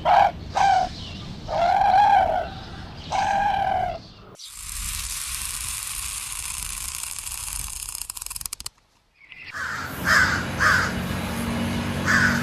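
Animal calls across cut-together clips: a few drawn-out calls in the first seconds, then about four seconds of steady hiss, then, after a brief gap, a run of short, quickly repeated calls.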